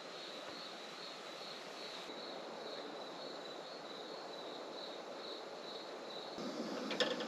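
An insect calling in a steady, evenly pulsing high trill, about three pulses a second, over a low outdoor hiss. Some clicks and rustling of handling start near the end.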